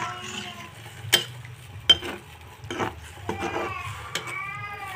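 A spatula stirring a wok of boiling coconut-milk vegetable broth, with several sharp clacks of the spatula against the pan. A cat meows near the end.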